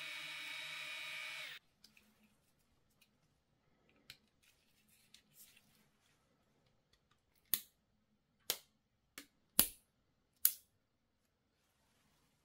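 A cheap foldable mini quadcopter's small motors whine steadily, then cut off suddenly about a second and a half in. Faint handling ticks follow, then five sharp plastic clicks in the second half.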